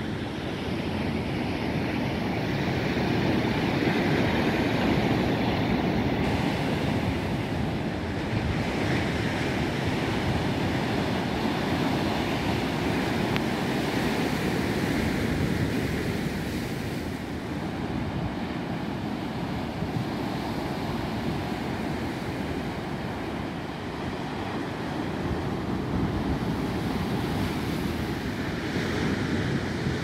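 Sea surf breaking on a rocky shoreline: a continuous rushing wash that swells and eases as each wave comes in, with some wind on the microphone.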